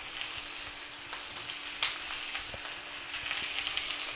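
Slices of precooked beef tongue frying in a nonstick pan: a steady, high-pitched sizzle and crackle of the hot fat, with one sharp click about two seconds in.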